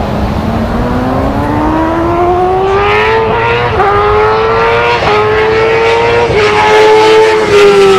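Stationary exercise bike's flywheel whining as it is pedalled hard, the whine rising in pitch over the first few seconds as the pedalling speeds up, then holding steady with brief dips.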